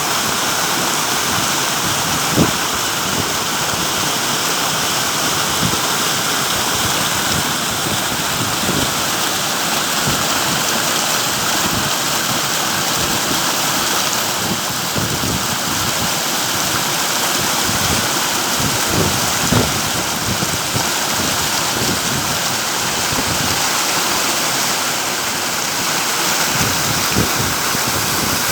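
Margoon Waterfall rushing steadily: a loud, even roar of falling water, with a few brief low thumps.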